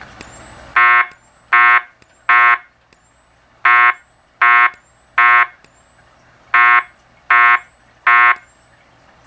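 Wheelock fire alarm speaker strobe sounding the temporal-three evacuation tone: three groups of three short, loud beeps, with a pause of about a second between groups.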